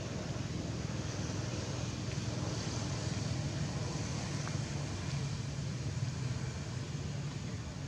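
A steady low rumble with a hiss over it, with no distinct animal calls.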